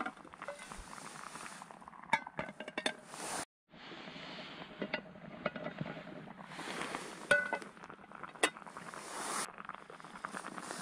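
Metal pans of a Trangia Storm Cook Set clinking as the frying-pan lid is set on the cooking pot and taken off again: several sharp clinks with a short ring.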